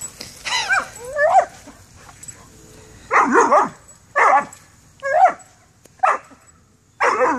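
Dog barking and yipping in about seven short, pitch-bending bursts, with a pause of over a second between the first two and the rest.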